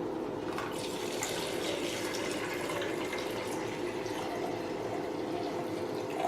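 Pure water being poured into the water tank of a cryolipolysis machine, a steady filling sound that picks up about half a second in.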